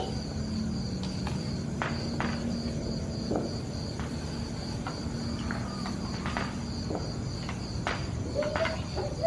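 Crickets trilling steadily in one high, even tone, with a few faint clicks scattered through.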